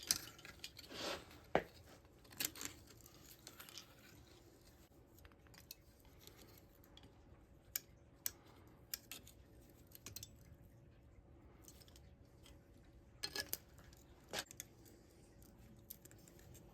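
Thin license-plate metal petals being bent and rolled by hand: scattered small clicks and scrapes, a cluster in the first three seconds and another near the end.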